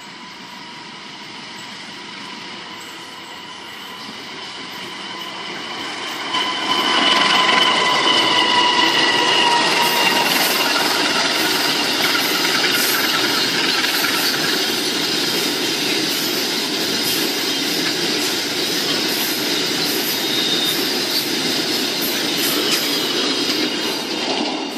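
Diesel locomotive hauling a long freight train approaches and passes close by, growing louder. A high tone drops in pitch as the locomotive goes past about seven seconds in. After that comes the steady rumble and rapid clicking of the wagons' wheels running over the rails.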